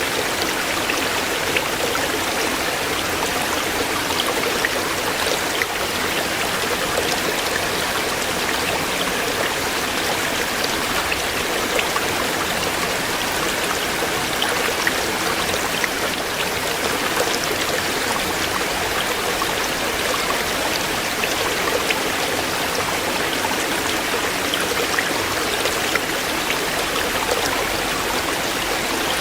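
Shallow stream running over stones: steady rushing and babbling water with small splashes.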